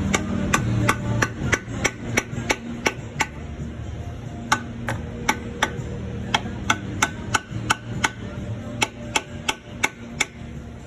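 Light, even hammer taps driving an S-cam bushing straight into its bore on a truck brake, about three taps a second in three runs with short pauses between them. The taps are kept light so the part goes in square without getting mushroomed.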